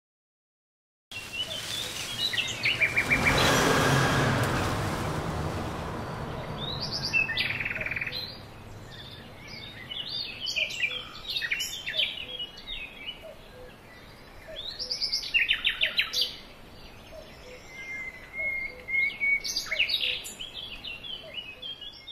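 Songbirds chirping and trilling in quick runs of repeated notes. About a second in, a rush of wind noise swells up and fades away over the next several seconds.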